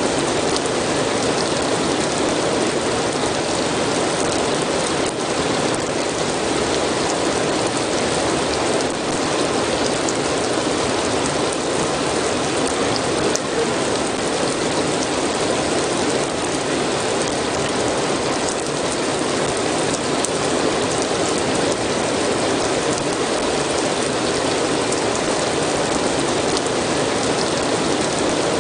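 Steady rain falling, an even hiss with the patter of individual drops.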